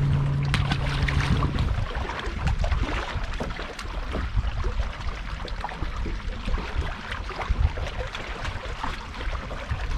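Wind buffeting the microphone on a bass boat, with small knocks and clicks of handling and water. A steady low hum runs at first and stops about two seconds in.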